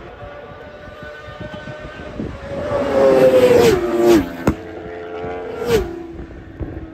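Two racing superbikes pass at full speed close by. Each engine note builds as it approaches, then drops sharply in pitch as it goes past. The first passes about four seconds in and the second about a second and a half later.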